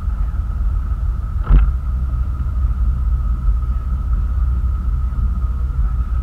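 Towing motorboat running steadily at speed, heard as a heavy low rumble of engine, wind and water at the stern, with a steady whine above it. A single thump sounds about a second and a half in.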